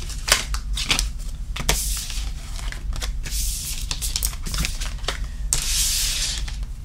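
Tarot cards being gathered up from a tabletop and shuffled: a quick run of flicks and slaps of card stock, with a longer sliding, rubbing hiss near the end.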